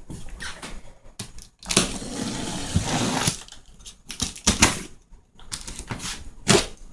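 Cardboard fireworks case being handled and opened: scraping and rustling of cardboard with a string of sharp knocks and clicks.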